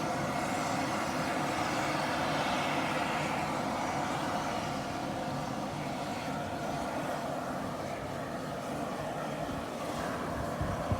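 Steady vehicle noise from a car's engine and tyres running on the road, with a brief knock near the end.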